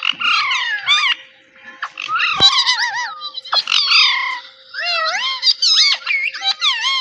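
Pet parrot calling: a rapid run of squawks and chattering calls, many sliding up and down in pitch, with a couple of short pauses.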